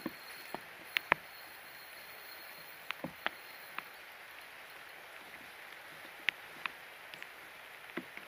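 Steady rain falling, with irregular sharp taps of raindrops striking close by.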